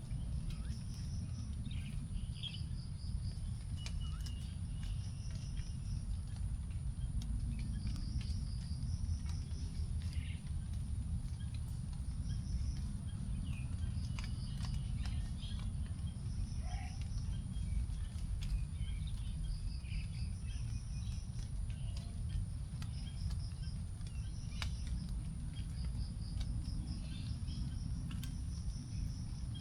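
Forest after rain: a bird repeats a short, high phrase of quick notes every few seconds, with other small chirps, over a steady high insect drone. Scattered drips of the last raindrops tick on leaves, and a low steady rumble runs underneath.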